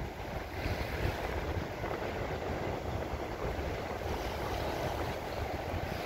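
Wind buffeting the microphone in irregular low gusts, over the steady wash of small waves breaking at the shoreline.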